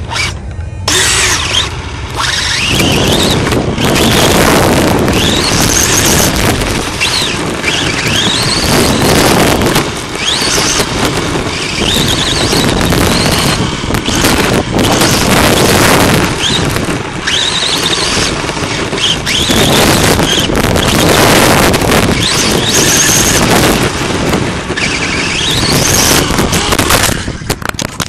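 Onboard sound of a Team Associated RC10 electric buggy running on a dirt track: a high whine from the motor and drivetrain climbs in pitch again and again as it accelerates, over dirt and wind noise. The noise drops away suddenly near the end.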